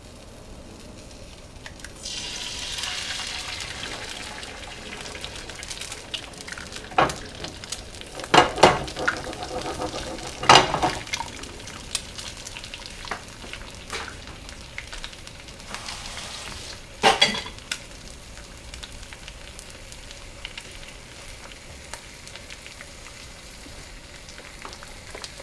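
Egg and ham frying in a hot pan: a steady sizzle that swells about two seconds in as the food goes into the fat, with a few sharp knocks of a utensil against the pan.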